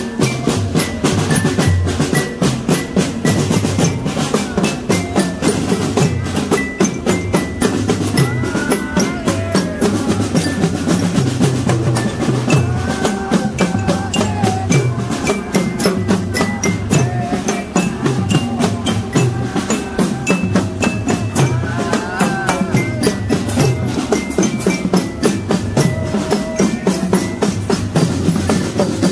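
Drum corps playing sholawat: fast snare and bass drum strokes in a steady, dense rhythm, with short high notes on top.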